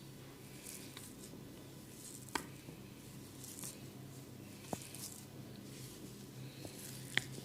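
Hair and scalp being rubbed and scratched during a head massage: soft swishing, with three short sharp clicks, about two, four and a half and seven seconds in.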